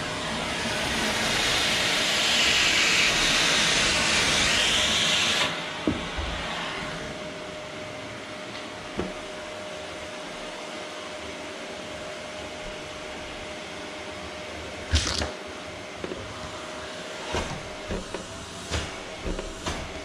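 Canister vacuum cleaner running: a loud suction hiss close by drops off sharply about five and a half seconds in, leaving the machine's steady hum. Scattered knocks come through, a sharp one about fifteen seconds in and several more near the end.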